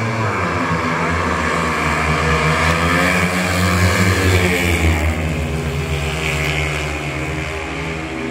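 Four speedway motorcycles' single-cylinder 500 cc methanol engines at full throttle, rising in pitch as they pull away from the start. Loudest as the bikes pass close by about four seconds in, then easing a little as they head away.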